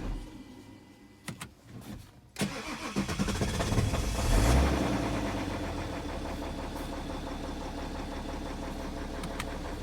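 A few faint clicks, then a BMW N57 3.0-litre six-cylinder diesel cranks and starts about two and a half seconds in, flares up in revs and settles to a steady idle. This is the engine whose knocking the owner is showing.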